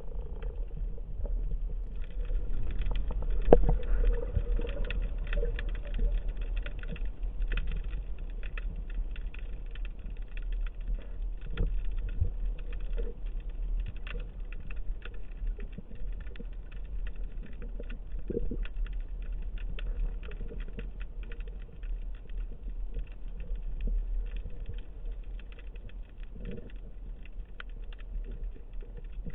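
Underwater ambience over a rocky reef: a dense, continuous crackle of tiny clicks over a low rumble of moving water, with a few louder knocks, the strongest about three and a half seconds in.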